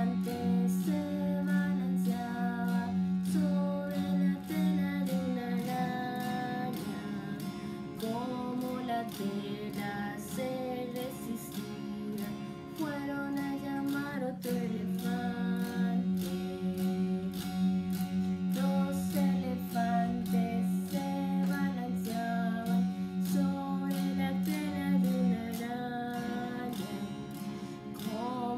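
A woman singing a Spanish children's counting song about elephants, accompanying herself on a steadily strummed electric guitar played clean through a small amplifier.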